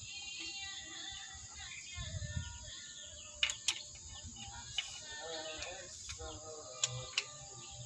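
A few sharp metallic clicks of a hand tool on the valve gear of a Nissan CWM330 engine's cylinder head, spaced irregularly in the second half, over faint background music and workshop noise.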